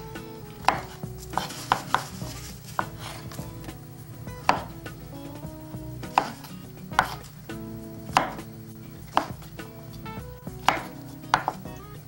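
A large kitchen knife chopping mushrooms on a wooden cutting board: sharp, irregular knocks of the blade on the board, about one a second.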